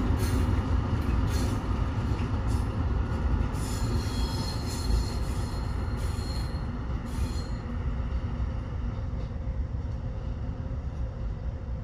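Two V180 diesel locomotives hauling a short ballast train past, with a steady low engine rumble and the wheels squealing on the rails. The squeal dies away after about seven seconds, leaving the rumble.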